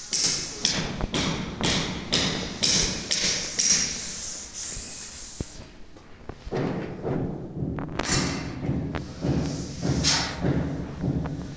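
Footsteps scuffing and thudding on a gritty, rubble-strewn concrete floor, about two a second at first, then quieter and more irregular.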